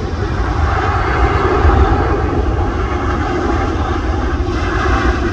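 Jet engines of a Boeing 747-8 freighter, its four GE GEnx turbofans, passing close on landing approach: steady jet engine noise with a held humming tone over a deep low rumble, swelling a little in the first couple of seconds.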